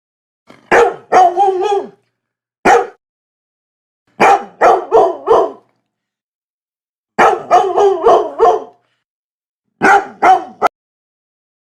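A dog barking in five bursts of one to five barks each, with dead silence between the bursts; the last burst ends in a sharp click.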